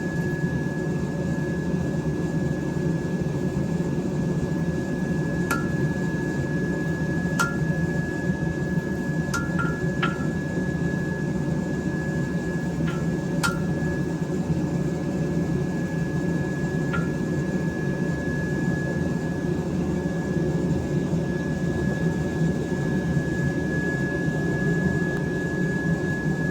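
Steady low rushing hum of a forge running, with a faint constant high tone. About seven sharp, isolated metallic clicks or light taps are scattered through the first two-thirds.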